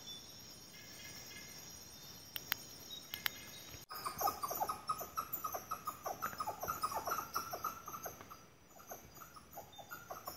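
Night insects chirring steadily, with a couple of faint clicks. After an abrupt cut about four seconds in, a tiny animal calls in a rapid run of short, sharp notes, several a second: a loud racket for so small a creature.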